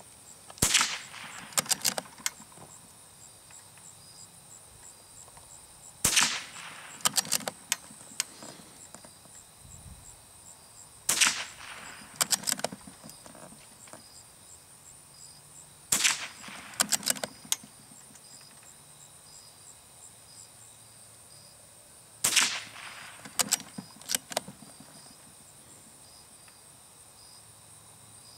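Marlin Model 25 bolt-action rifle firing .22 LR match rounds: five sharp shots about five to six seconds apart. About a second after each shot comes a short run of clicks as the bolt is worked to chamber the next round. A steady high-pitched insect chorus runs underneath.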